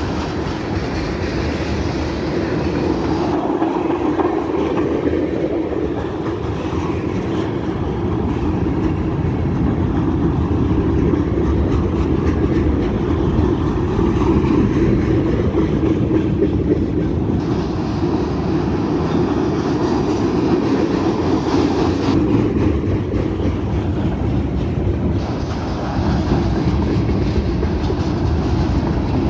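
Canadian National freight train rolling past close by: a steady, loud rumble and rattle of freight cars, with steel wheels on the rails.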